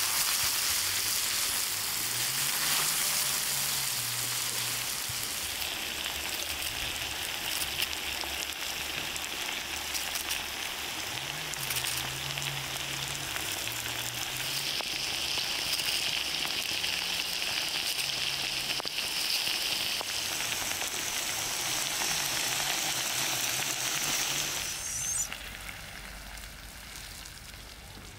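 Liver, potato and onion sizzling steadily in a hot steel pan over charcoal. The sizzle stops suddenly about three seconds before the end, leaving a much quieter background.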